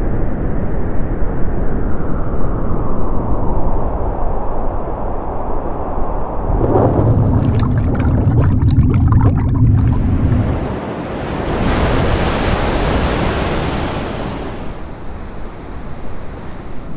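Rushing wind and water noise. From about seven seconds in comes a deep underwater rumble with a fizzing crackle of bubbles. Around twelve seconds in a loud rushing wash of surf swells up and then fades.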